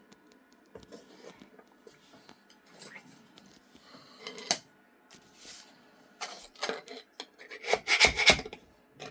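Hands handling the finished part on the 3D printer's build plate: scattered rubbing and clicking, with a burst of clattering knocks about eight seconds in.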